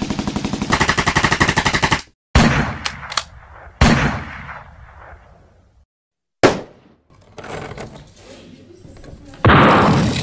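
War sound effects: a rapid, even rattle of machine-gun fire that cuts off about two seconds in, then single sharp bangs, each dying away in an echo, spaced a second or two apart. A louder blast comes near the end.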